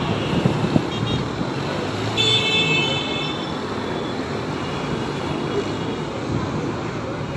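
Road traffic running in a jam, with car horns honking: a short toot about a second in and a longer horn blast about two seconds in, lasting under a second.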